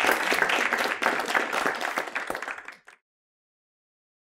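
Audience applauding, a dense patter of many hands clapping, which fades and stops about three seconds in, followed by dead silence.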